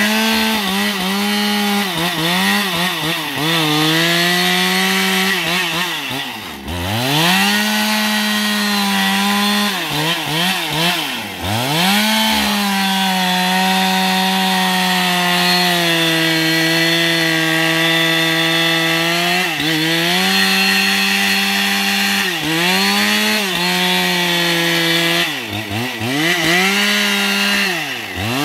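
Husqvarna 272XP two-stroke chainsaw running at high revs while cutting into the base of a tree trunk. The engine note sags a little under load and the revs drop away and climb back several times as the throttle is let off and opened again.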